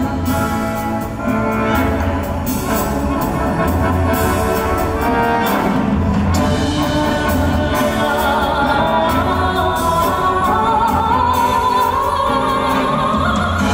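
A male singer's high voice sung live over a full orchestra, heard from the audience in a large hall; over the last few seconds the voice climbs steadily higher.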